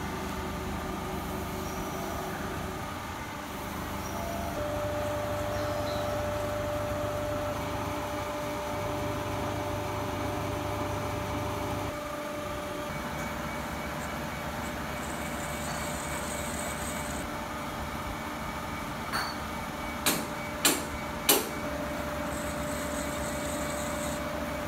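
CNC milling machine running steadily with a hum and a steady whine; the sound shifts a couple of times, and a few sharp clicks come near the end.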